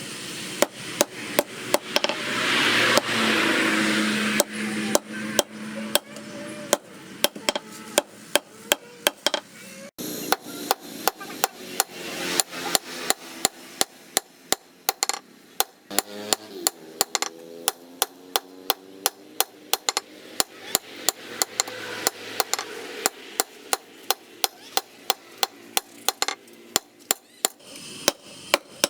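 Hand hammer striking steel on an anvil in a steady run of blows, about two to three a second, each with a short metallic ring: leaf-spring steel being forged into a small knife.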